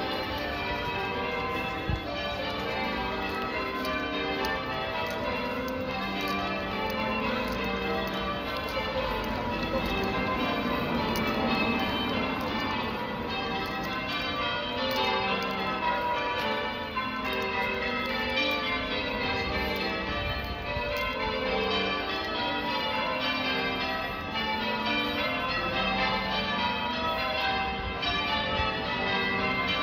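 Church tower bells being change-rung: a steady, unbroken run of strikes at several pitches, each bell ringing on into the next.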